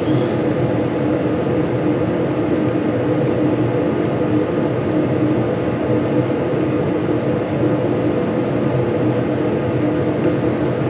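A steady mechanical hum with a few held tones running unchanged, with a few faint light ticks about three to five seconds in.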